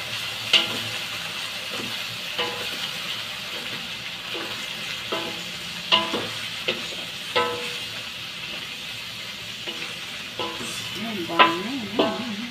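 Vegetables sizzling in a hot metal wok as they are stir-fried with a wooden spatula, which knocks against the wok at irregular moments, several knocks leaving a short metallic ring.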